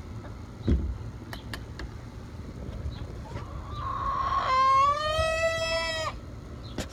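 A hen gives one long, drawn-out, strained call that rises and then holds steady for over a second and a half, the odd call of a hen close to laying. Earlier there is a thump about a second in and a few light clicks.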